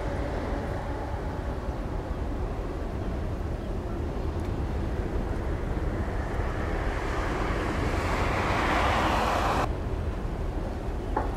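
Outdoor waterside noise: a steady low rumble with a broad rushing noise that swells in the second half and cuts off suddenly near the end.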